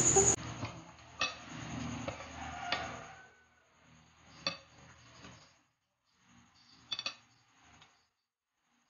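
Cucumber slices being set on a ceramic plate by hand: a few soft clicks and light taps against the plate over faint handling noise, with short pauses between.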